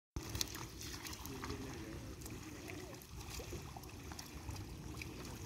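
Wading and groping in shallow muddy water: scattered small splashes and squelches, with faint voices in the background.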